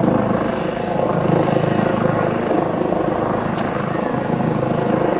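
Steady engine drone with a fast, even pulse.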